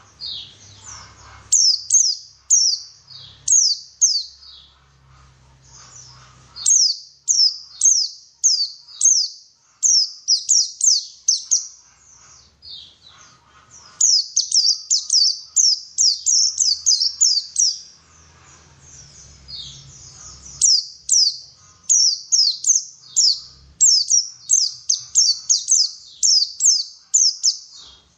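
White-eye (pleci) song: bouts of rapid, high, downward-sweeping chirps lasting a few seconds each, with short pauses between them.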